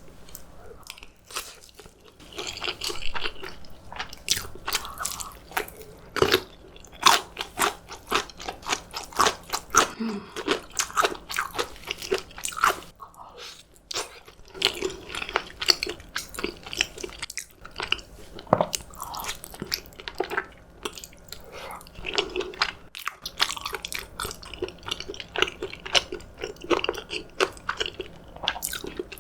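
Close-miked eating: a person chewing food, with repeated crunching bites in quick, irregular succession.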